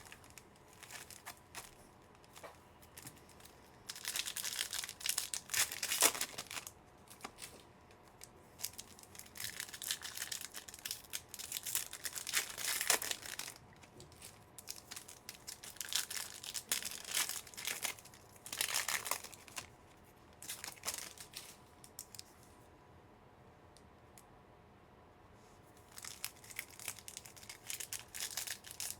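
Sports-card pack wrappers being torn open and crinkled by hand, in several bouts of tearing and crinkling a few seconds apart.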